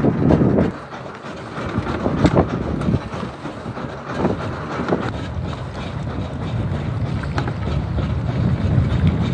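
Steady low rumble of a fishing boat under way at sea, with wind buffeting the microphone and a few sharp knocks.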